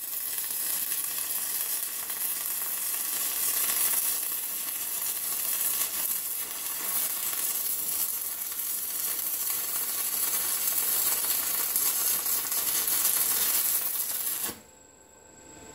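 Electric arc welding on steel: the arc's steady, crackling hiss, which cuts off suddenly near the end as the bead is stopped.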